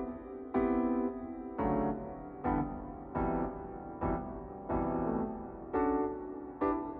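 Background piano music: even chords struck a little more than once a second, each one ringing and fading before the next.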